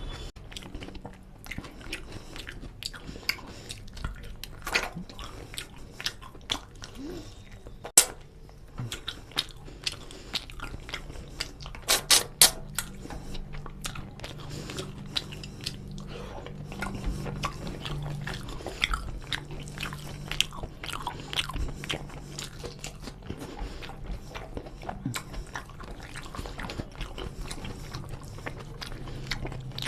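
Close-miked eating sounds of rice and chicken curry eaten by hand: chewing and wet mouth smacks, with squishing of fingers mixing curry-soaked rice on a steel plate. Irregular sharp clicks run throughout, the loudest about eight and twelve seconds in.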